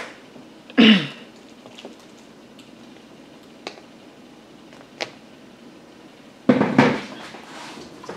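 Handling noises from plastic cups and potting soil on a table: a short scuffing noise about a second in, two light clicks, and a louder rustle near the end.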